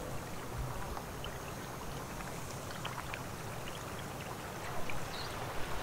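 Shallow river water flowing slowly over a sandy bed: a steady soft rush with small scattered trickling ticks.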